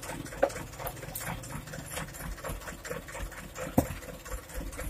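Mitsubishi Canter dump truck's diesel engine idling with an even, clattering beat. Two sharp knocks stand out, one about half a second in and one nearly four seconds in.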